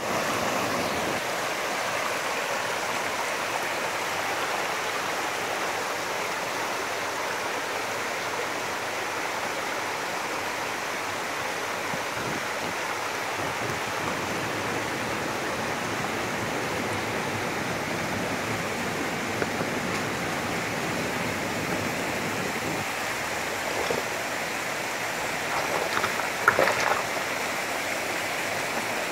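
Mountain stream rushing steadily over rocks, with a few short knocks near the end.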